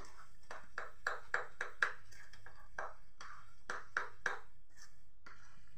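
A hand stirring thick semolina (rava) idli batter with Eno in a plastic bowl, making short, quick sounds about three or four times a second as the fingers work through the batter.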